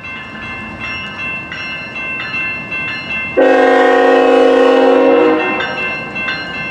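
A train horn sounds one long chord-like blast, starting about three and a half seconds in and lasting about two seconds, over steady high-pitched tones.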